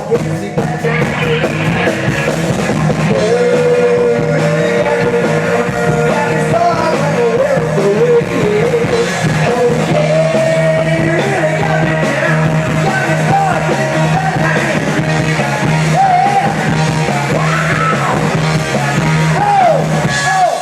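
Live rock band playing loud, with singing over amplified instruments.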